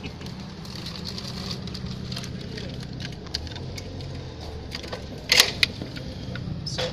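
Background ambience: a steady low hum with faint voices, and a few sharp clicks about five seconds in.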